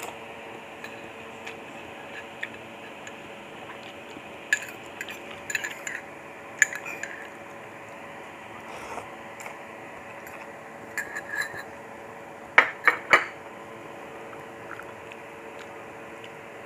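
A metal fork clinking and scraping against a small ceramic bowl of lomi noodle soup while noodles are lifted out, in scattered clusters of sharp clinks, the loudest group about three-quarters of the way through. A steady low hum runs underneath.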